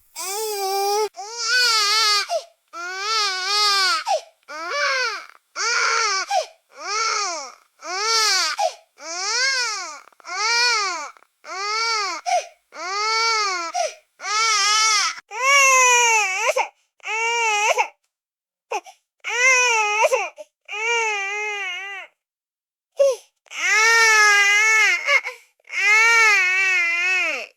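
Baby crying: a long run of wails, each about a second long, rising and falling in pitch, broken by quick breaths, with a couple of longer pauses in the second half.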